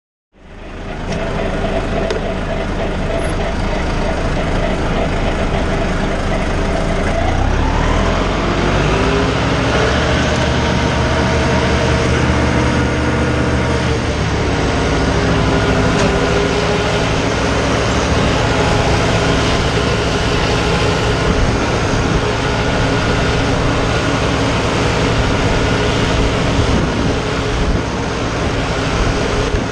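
John Deere farm tractor's diesel engine running steadily under load while it pulls a mower through standing grass. The engine note rises about seven seconds in, holds, and drops back to a steady pitch about halfway through.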